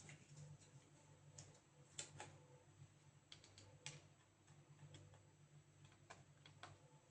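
Near silence broken by faint, irregular clicks and taps of small laptop parts and tools being handled, over a steady low hum.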